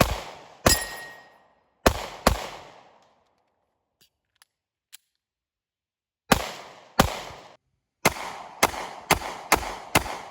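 Canik 9mm pistol fired in strings: two pairs of shots, a pause of about three seconds, another pair, then a rapid run of five shots about two a second near the end. Each shot is a sharp crack with a short trailing echo.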